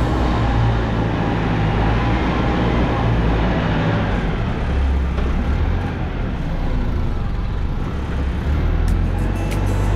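Excavator engine running with a steady low drone that shifts in pitch and level a few times, typical of the machine working under changing load.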